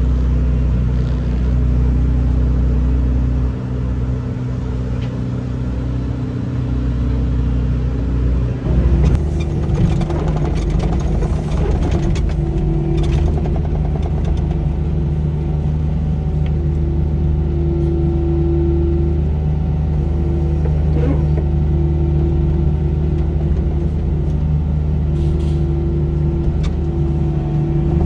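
Heavy diesel machinery engine running steadily, with an abrupt change to another engine sound about nine seconds in, followed by a steady hum with an on-and-off whine and occasional clanks.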